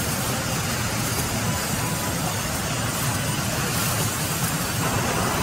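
Sawmill band-saw machinery running steadily: a constant low motor hum under an even mechanical noise.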